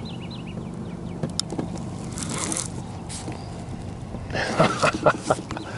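Daiwa Seagate fishing reel being cranked against a hooked fish: a steady low whir with scattered ticks, then a short flurry of clicks and rattles about four and a half seconds in.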